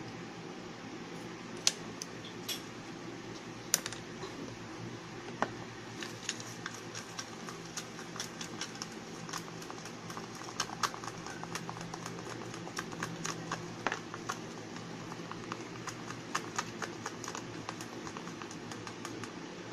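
Stirring in a small plastic measuring cup: irregular clicks and taps of the stirrer against the plastic, a few louder ones at first and coming thicker and faster after about six seconds, over a steady low hum.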